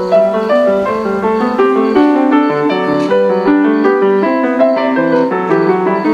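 Grand piano being played, a continuous melody of many quick notes over lower chords.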